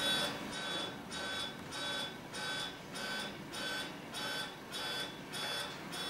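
Electronic alarm beeping steadily, about two short high beeps a second, stopping near the end.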